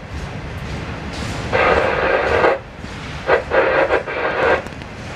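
Scanner radio sounding in short band-limited bursts: one about a second and a half in, then several quick ones near the end. Under them a freight train of autorack cars rolls past with a steady rumble.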